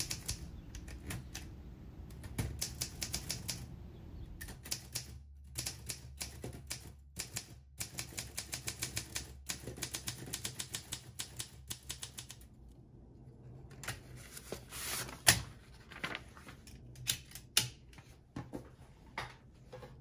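Olympia de Luxe manual typewriter being typed on: quick runs of key strikes with short pauses. The typing stops for about a second and a half past the middle, and there is one louder knock about fifteen seconds in.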